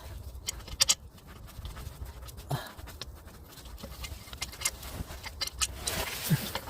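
Scattered clicks and knocks of hand tools on metal as bracket bolts on the engine block are worked loose, with a sharp double knock about a second in.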